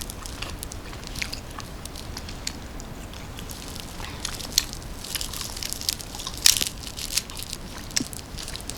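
Crisp fried shallots crunching close to the microphone as they are eaten: scattered sharp crackles that grow denser in the second half, the loudest about six and a half seconds in.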